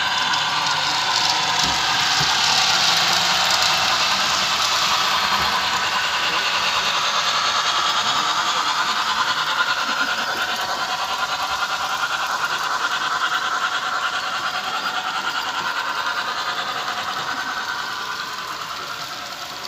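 Model railway train running on the track: a steady whirring rattle from the locomotive's motor and the wheels on the rails. It swells over the first few seconds and fades toward the end.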